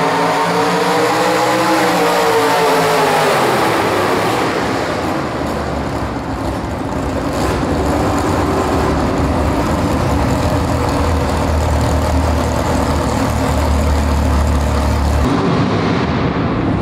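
Pulling truck's engine at high revs under load, its pitch wavering, then falling away about three seconds in as the pull ends. After that an engine runs low and steady, with an abrupt change near the end.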